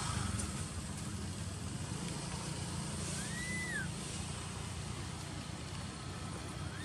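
A baby long-tailed macaque gives one short, arched, whistle-like cry about three seconds in, rising and then falling in pitch, as it is held down by an adult female. A steady low rumble runs underneath.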